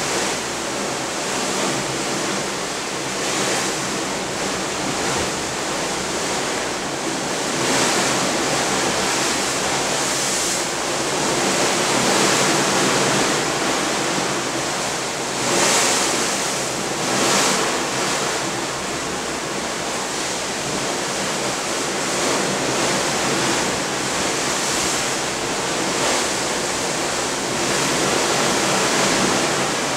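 Waves breaking off a cruise ship's bow as it moves through the sea: a steady rushing wash that swells louder now and then, with two brief surges a little past halfway.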